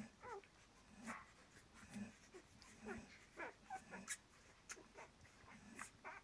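Faint squeaks and grunts from four-day-old flat-coated retriever puppies as they nurse, several short squeaks a second sliding up and down in pitch, over soft low puffs about once a second.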